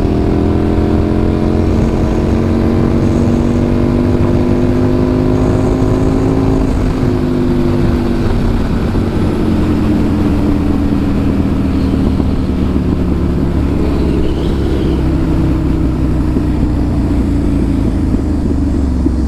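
2007 Aprilia RSV 1000R's V-twin running under way through its new exhaust. The engine note climbs slowly for about seven seconds, steps down in pitch and then eases gradually lower, over a heavy low rumble.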